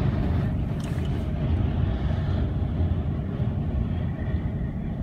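Steady low rumble inside a truck cab, with the engine running and strong gusting wind buffeting the vehicle.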